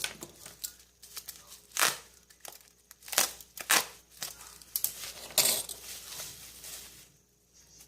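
Hands working on a laptop's parts during a RAM upgrade: an irregular run of sharp clicks and scrapes, four of them louder, dying away near the end.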